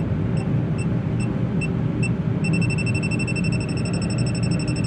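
Suryha electronic refrigerant leak detector beeping, about two and a half short high beeps a second, then going over to one continuous tone about halfway through as its probe sits at the connection: the sign that it has found a refrigerant gas leak there. A steady low hum runs underneath.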